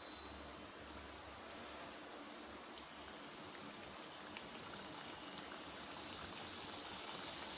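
Dough pieces sizzling as they deep-fry in hot oil in a steel pan: a faint, steady hiss with scattered small crackles, growing a little louder near the end.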